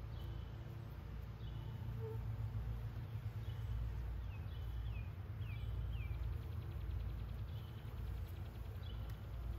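Honeybees humming steadily around an opened hive, with a bird chirping repeatedly in short high notes, a few of them sliding downward about halfway through.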